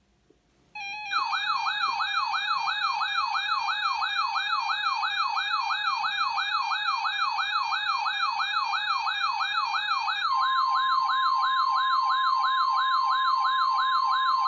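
Weather-radio alert siren: a tone that warbles up and down about three times a second, starting about a second in. In the last few seconds a steady NOAA Weather Radio warning tone near 1050 Hz joins it, announcing the next warning broadcast.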